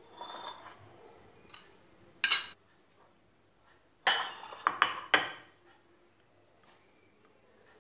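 Dishes and a fluted foil tart tin being set down and handled on a stone countertop. There is one brief clatter about two seconds in, then a run of four or five sharp clinks a couple of seconds later.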